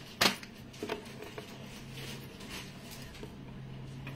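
A sharp click about a quarter second in, then a few faint scattered clicks and taps. A low steady hum comes in partway through.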